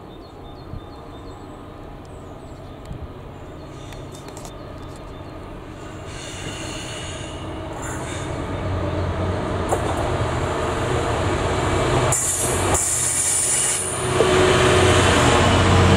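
Freight train approaching and growing steadily louder, with the deep rumble of the locomotive building up. Its wheels squeal on the rails about six seconds in and again near the end.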